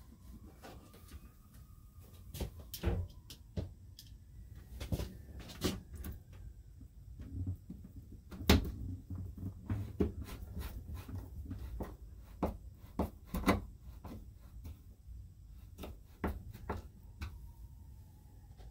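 Hands and a screwdriver handling the plastic interior trim of an RV roof vent fan: irregular clicks and knocks, the loudest about eight and a half seconds in, over a low steady rumble.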